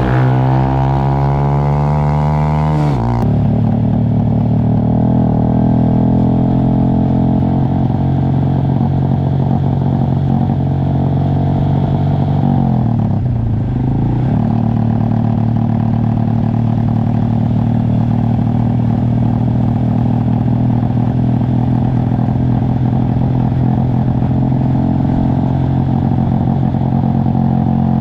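Motorcycle engine under way, rising in pitch as it accelerates for about three seconds, then dropping suddenly at a gear change. It then runs steadily, with a brief dip and pick-up in revs about halfway through.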